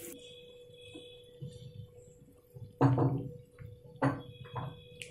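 A spatula stirring thick boiled black gram dal into leafy greens in a nonstick pan: a few wet knocks and scrapes about three seconds in and again about a second later. A faint steady hum runs underneath.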